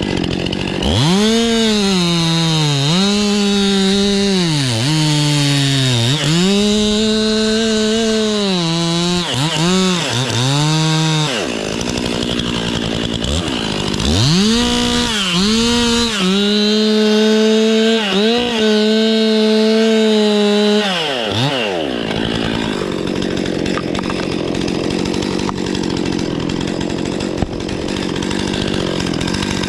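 Two-stroke chainsaw cutting cedar at full throttle. The engine pitch sags repeatedly as the chain loads up in the wood and rises again as it frees. About 22 seconds in the cutting stops and a steadier engine sound carries on.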